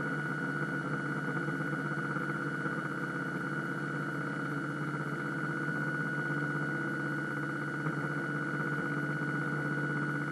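Radio-controlled model pirate ship's drive motor running steadily at a constant speed: a continuous whine with a strong high tone over lower hum and hiss.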